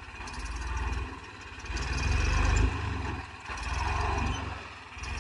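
New Holland 3630 tractor's diesel engine revving in three surges, rising and falling about every second and a half, as it strains against a loaded tipping trolley bogged in soft soil.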